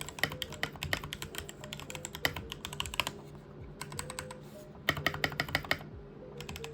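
Typing on a Keychron K12 compact mechanical keyboard with Keychron brown switches. The keys clack in quick uneven runs with short pauses between them.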